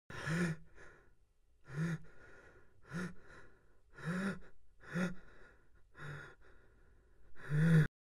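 A young man gasping for breath: seven voiced gasps, each like a short moan, about one a second, with fainter breaths between them. The last gasp is the loudest and cuts off abruptly near the end.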